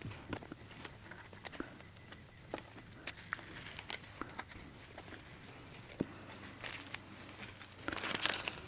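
Tape being slowly peeled off watercolour paper: faint crackling with scattered small ticks, and a louder, denser stretch of peeling near the end.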